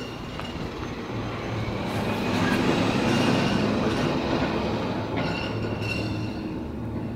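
A vehicle passing by: a rushing noise that swells to a peak about three seconds in, then fades away.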